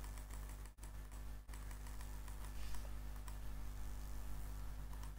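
Rapid run of computer mouse clicks on a date picker's year arrow, thinning after about two seconds into scattered single clicks, over a steady low hum.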